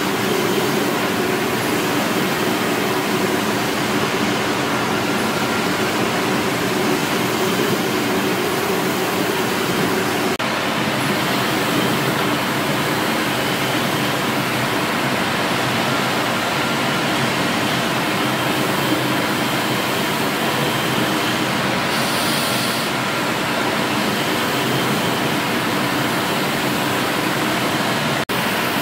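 1878 Goddard & Massey beam engine running: a steady hiss with a faint low hum underneath and no distinct beat.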